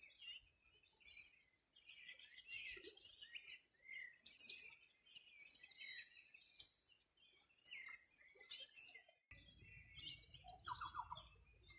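Several songbirds singing and calling together, faintly, in quick overlapping chirps and sharp whistles. About nine seconds in, a low rumble comes in beneath them.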